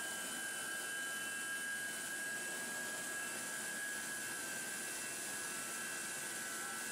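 Steady running noise of welded steel tube mill machinery: an even hiss with a steady high whine over it.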